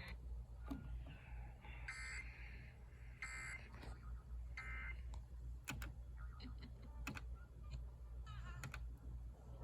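Scattered computer keyboard clicks over a steady low hum, with three short electronic beeps a little over a second apart in the first five seconds.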